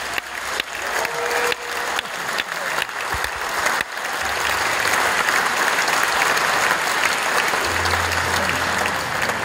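Concert audience applauding, the clapping growing louder and more even after about four seconds.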